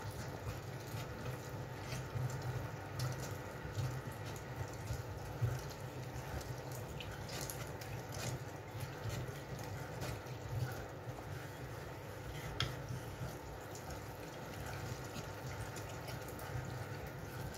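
Hand-cranked stainless steel food mill turning as its blade presses fresh tomatoes through the perforated disc: a steady wet churning with a few brief clicks.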